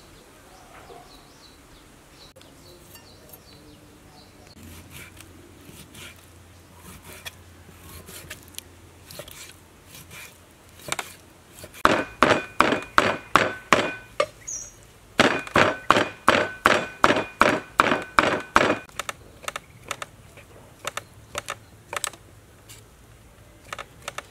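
A large kitchen knife chopping pork and mushrooms on a wooden chopping block. Light scattered cuts give way to two runs of fast, heavy chopping, about six strokes a second, with a ringing tone over the strokes. Lighter, sparser chops follow near the end.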